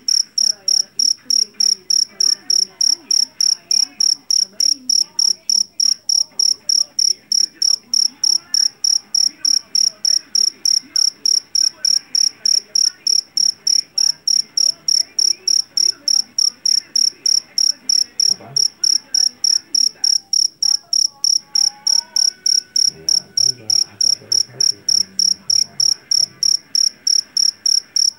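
A jeliteng (Javanese) field cricket singing: a loud, shrill, high-pitched chirp repeated in an even rhythm of about three chirps a second, the male rubbing its wings together to sing.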